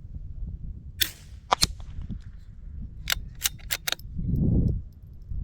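A .22 rimfire shot (Eley match ammunition through a Mark II) cracks about a second in. Several sharp clicks follow: two right after the shot and a quick run of four a couple of seconds later. A low rumble swells near the end.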